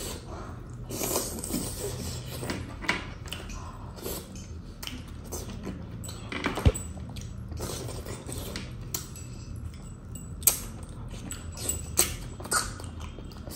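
A person eating mutton leg pieces by hand: chewing and tearing the meat off the bone, with several sharp smacks.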